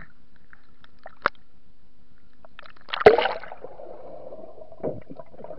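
Water sloshing and gurgling around a camera held under a swimming pool's surface, muffled by the water. A sharp knock comes about a second in, then a louder splash-like surge about three seconds in that fades over the next two seconds, with another knock near the end.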